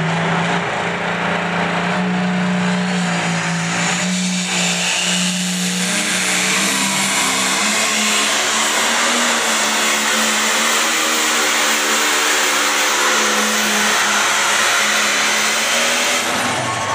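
Turbocharged diesel engine of a red International light pro stock pulling tractor running flat out as it drags the weight-transfer sled. Its pitch steps up slightly about half a second in and then creeps higher, with a faint high whine rising over the middle of the pull.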